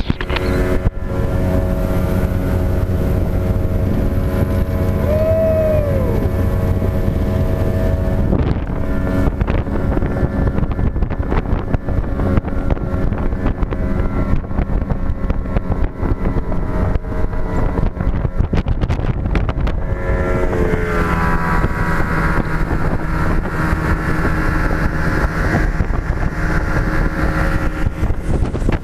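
Outboard motor of a 25-foot Blue Wave bay boat running at speed under way, with wind buffeting the microphone. The engine note dips about two-thirds of the way through, then holds steady again.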